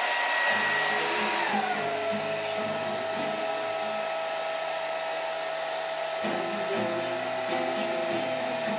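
Handheld hair dryer blowing steadily, its motor whine dropping in pitch about a second and a half in and then holding at the lower note.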